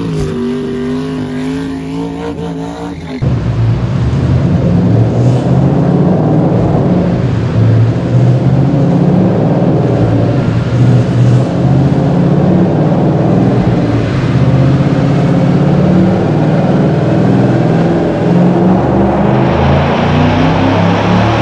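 2013 Ford Mustang's engine running loud on a chassis dynamometer, starting suddenly about three seconds in and holding a fairly steady pitch. Before it there is a short intro sound with gliding tones.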